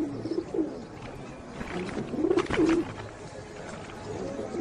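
A flock of pigeons cooing over and over in low, rising-and-falling calls, with a brief clattering burst about halfway through.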